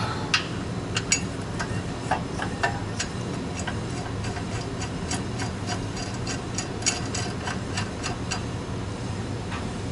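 Hand ratchet clicking as the rear brake caliper hardware is bolted back on: scattered ticks at first, then a fast, steady run of clicks from about halfway through.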